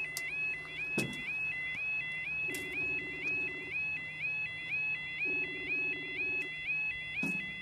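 Level crossing audible warning alarm sounding a repeating rising two-tone yodel, about two cycles a second, warning that the barriers are coming down for an approaching train. Fainter lower tones come and go beneath it.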